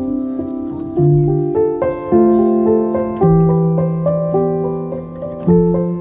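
Background piano music: a slow melody of sustained notes, with deep bass notes struck about a second in, about three seconds in and again near the end.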